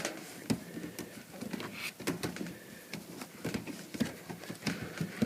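Hand-handling noise: scattered soft clicks and taps, irregular and light, as duct seal putty is pressed around an air conditioning line.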